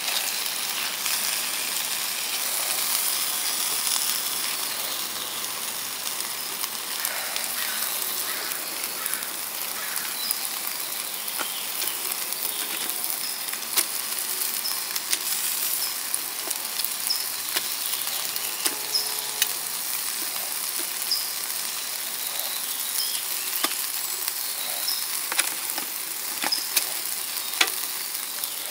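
Beef sizzling on a grill: a steady hiss broken by irregular sharp pops and crackles.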